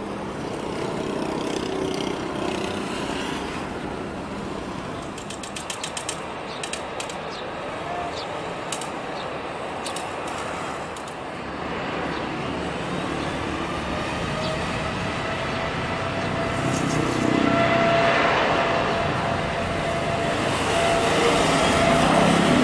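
Jet engine noise from a Boeing 777-300 climbing away after take-off: a steady rumble, with a few sharp clicks near the middle. About halfway through it gives way to a Boeing 787-8 Dreamliner on its take-off roll, whose engines make a steady whine that grows louder toward the end.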